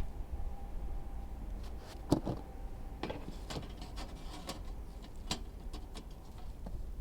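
Scattered clicks and knocks of small objects being handled, the loudest about two seconds in, over a low steady rumble.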